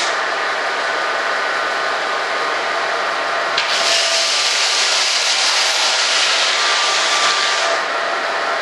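Electric power sander running steadily against a foam model part, taking off the rough surface; the high sanding hiss thins at first, comes back strongly about three and a half seconds in, and thins again near the end.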